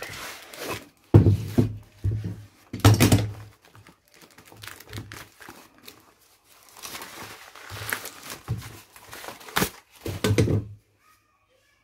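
Cardboard box and newspaper wrapping torn and crumpled by hand, with a few thumps as the package is handled on the table; the rustling stops about a second before the end.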